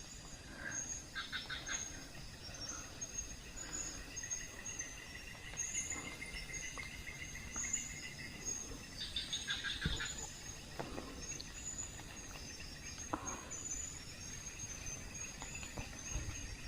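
Forest ambience of insects chirping and trilling steadily, with two louder bursts of rapid pulsed calls, one about a second in and one around nine seconds in, and a few faint knocks.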